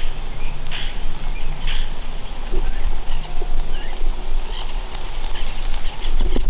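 Birds calling in short, scattered chirps over a steady low rumble.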